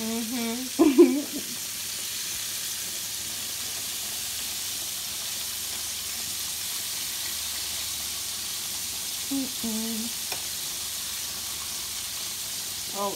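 Breaded spot fish frying in a pan of hot oil: a steady sizzle, with a fork moving the pieces in the pan. Brief bits of voice come near the start and again around nine seconds in.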